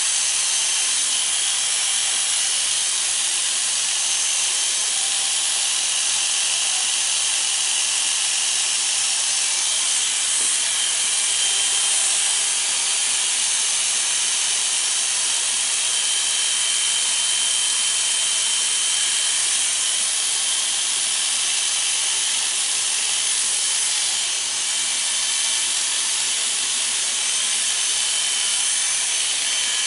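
Corded electric hair clippers running steadily while cutting short hair over a comb.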